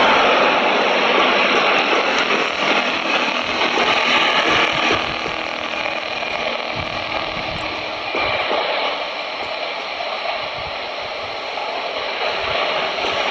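Jet engines of a twin-engine wide-body airliner running as it rolls along the runway: a steady rushing roar that eases slightly in the second half.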